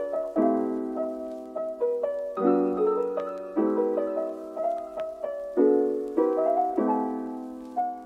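Background piano music: soft sustained chords, a new chord struck roughly once a second and left to ring and fade.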